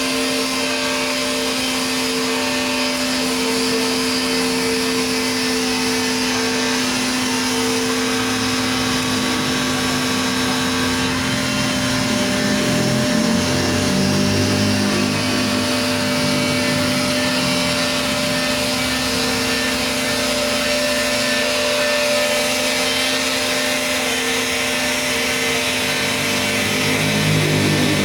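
Electric power sander running steadily on MDF board, its motor hum joined from about halfway through by an uneven lower rumble as the sanding goes on.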